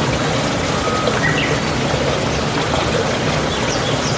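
A few short bird chirps and whistles over a steady rushing noise.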